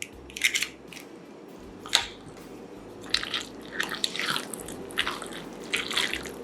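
A utensil stirring a wet filling of chopped chicken, cream and eggs in a bowl: irregular squishing strokes, a few separate ones at first, then quicker and closer together from about three seconds in.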